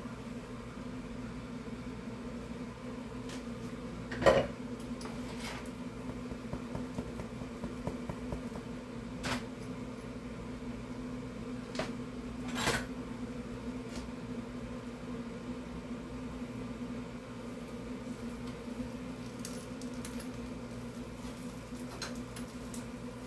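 Pots-and-pans clatter: a frying-pan lid is lifted off and set down with a sharp knock about four seconds in, followed by a few lighter clinks of cookware, over a steady low hum.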